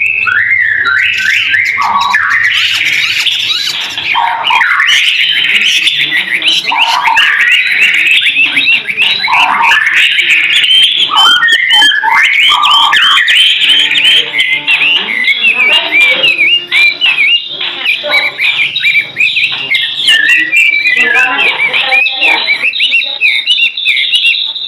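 White-rumped shama singing without pause: a fast, varied stream of whistled notes, glides and chattering phrases.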